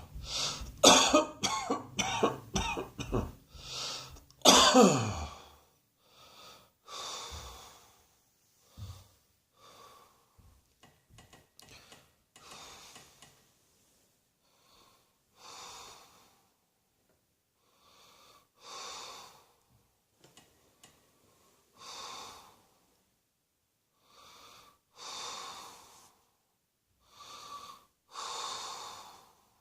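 A person in a hard coughing fit: a rapid run of loud, harsh coughs for about the first five seconds, ending in a falling groan. After that come slow, wheezy breaths, one about every three seconds.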